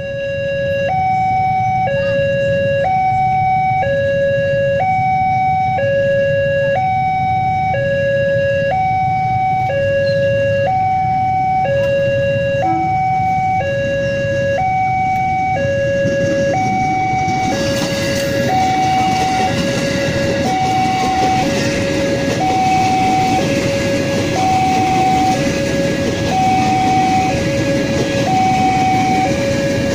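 Railway level-crossing warning alarm sounding an electronic two-tone signal, alternating between a lower and a higher tone about once a second, the signal that a train is coming. About halfway through, the rumble of an approaching ex-JR 205 series electric commuter train builds up under it as the train draws near and passes.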